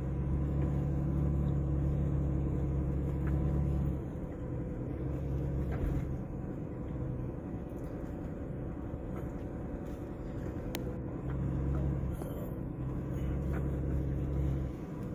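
Pickup truck engine running at low speed in four-wheel-drive low range while crawling up a rough dirt road. It is a steady low drone that is louder at the start and again near the end, with a couple of light knocks.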